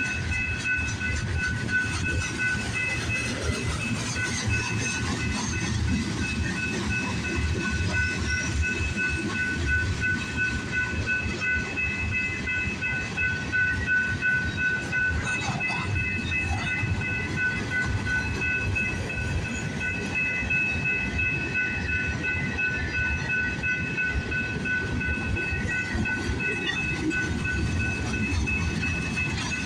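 Freight train cars rolling slowly past, the wheels rumbling and clacking over the rail joints, with a steady high-pitched ringing tone over the top.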